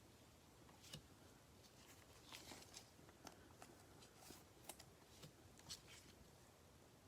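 Near silence, with faint scattered clicks and light rustles of trading cards being handled and slid through a pack.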